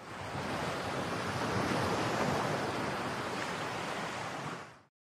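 A rushing, wind-like whoosh sound effect for a title card dissolving into dust, rising quickly and holding steady for about five seconds before cutting off abruptly near the end.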